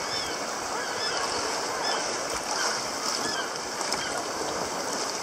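Sea water washing steadily, with birds giving many short, repeated calls over it.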